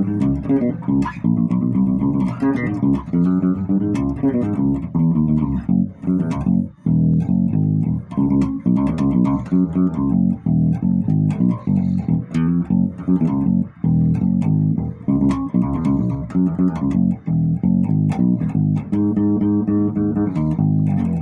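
Electric bass guitar played as a continuous run of plucked notes, with the low end turned up on its tone control. The playing stops right at the end.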